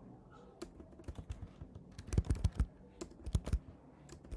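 Typing on a computer keyboard: irregular keystroke clicks in short quick runs with small gaps between them.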